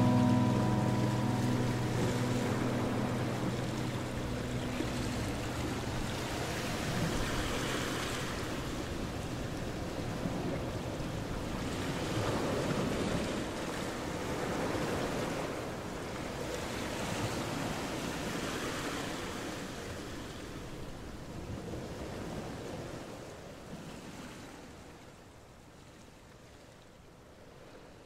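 Rushing noise like surf, swelling and ebbing every few seconds and fading away over the last few seconds. Low held notes of the music track die out during the first few seconds.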